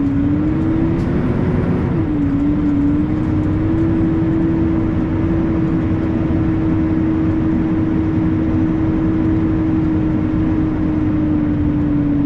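International semi truck's engine and road noise, heard from the cab while the truck gets up to speed on the highway. The engine note dips twice in the first couple of seconds, then holds steady under a constant road rumble.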